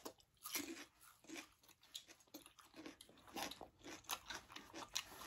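Raw cucumber being chewed, a faint series of irregular crisp crunches.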